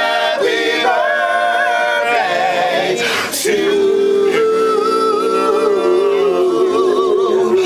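A group of men singing a cappella in harmony. About three and a half seconds in they settle into one long held chord, with a high voice wavering above it.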